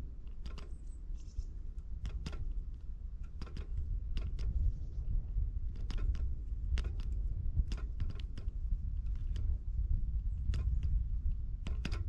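Great spotted woodpecker pecking at food on a feeder: irregular sharp taps, often in quick pairs, about one or two a second, over a steady low rumble.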